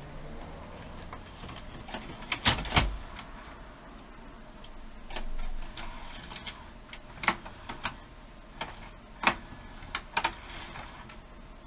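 A VHS cassette being handled and pushed into the open cassette housing of a Toshiba DVR20 video recorder: a series of plastic clicks and knocks, the loudest pair about two and a half seconds in.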